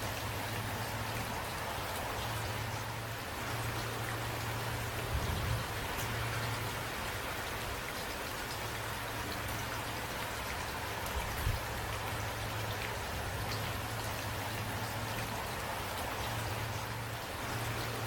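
Steady rain falling, with faint scattered drop ticks over an even hiss and a low rumble underneath. There are two brief low thumps, about five and eleven seconds in.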